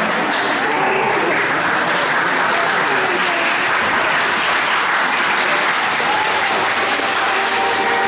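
Audience applauding, a dense steady clapping with some cheering voices mixed in.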